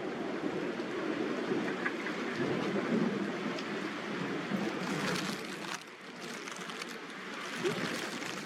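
Steady rain falling, with a few sharper drop taps a little past the middle.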